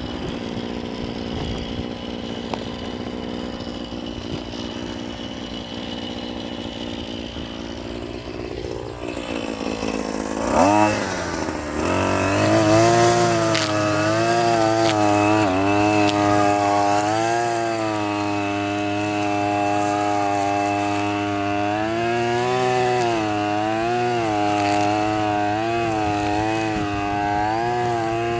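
Hyper Tough gas string trimmer's two-stroke engine idling, then revved up sharply about ten seconds in and held at high revs while cutting, its pitch dipping and recovering again and again as the line meets the weeds.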